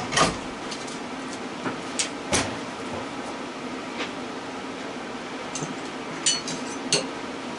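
Scattered sharp clicks and knocks from tools and metal parts being handled while an electric motor is taken apart for its copper windings, about half a dozen in all, over a steady low hum.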